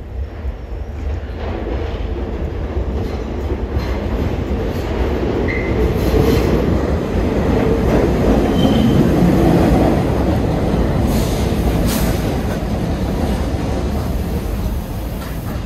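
New York City subway train running through the station, its rumble building to a peak about eight to ten seconds in and then easing off. A couple of brief wheel squeals and a few sharp clanks from the wheels and rail joints stand out over the rumble.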